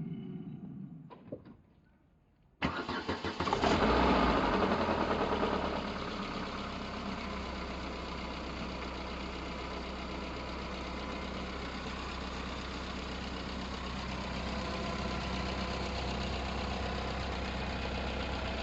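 Mercedes A 200 Turbo (W169) four-cylinder turbo petrol engine started cold: a few faint clicks, about a second of starter cranking, then it catches and runs at a raised speed for a couple of seconds before settling into a steady idle. The owner's strange noise is said to show only briefly at the very start.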